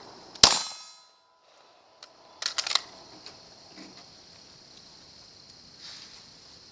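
A single gunshot about half a second in, with a short metallic ring trailing after it. A quick cluster of three or four sharp metallic clicks follows about two and a half seconds in.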